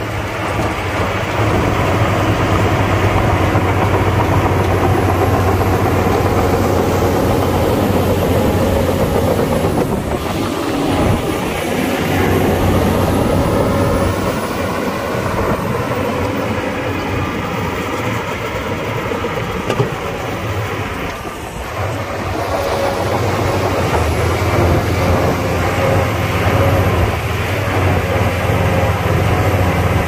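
Diesel engines of heavy earthmoving machinery (dump trucks and a bulldozer) running under load: a steady low engine drone whose pitch rises and falls around the middle.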